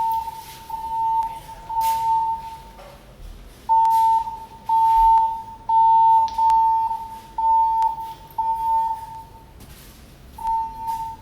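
Fire alarm voice-evacuation system sounding its alert tone through the building speakers: a steady high tone, about 1 kHz, in pulses of just under a second with short gaps. There are two longer breaks, about three seconds in and near the end, and a few faint clicks.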